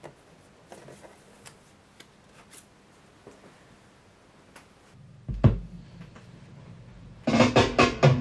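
Vinyl record sleeves being flipped and pulled from a crate, with faint taps and rustles. About five seconds in comes a thump and then a low hum from the turntable. Near the end a drum beat starts playing from the record.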